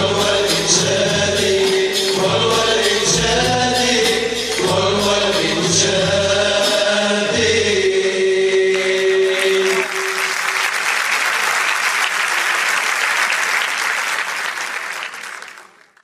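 A vocal ensemble singing a devotional madih over a steady drum beat, ending on a long held note about nine seconds in. Audience applause follows and fades out near the end.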